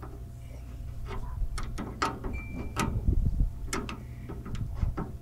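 Scattered, irregular light clicks and knocks of handling, over a steady low hum.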